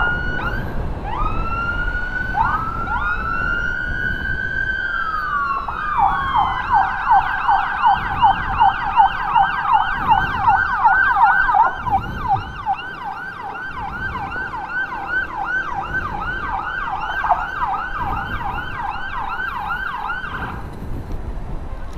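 Electronic emergency siren: a few slow rising-and-falling wails over the first five seconds or so, then a fast yelp cycling about three times a second, which cuts off suddenly near the end. Engine and road noise runs underneath.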